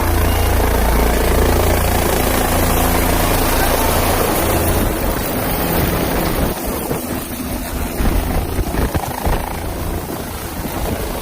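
Helicopter running close by, a loud, dense rotor and engine noise. In the second half the low end turns uneven, with gusty thumps.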